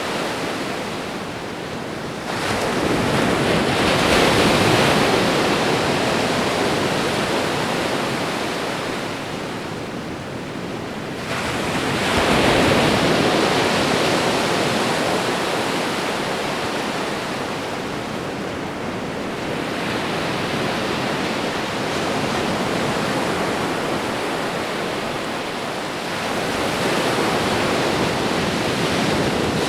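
Ocean waves washing onto the shore: a continuous rush of surf that swells with each breaking wave, about every ten seconds, and then ebbs away.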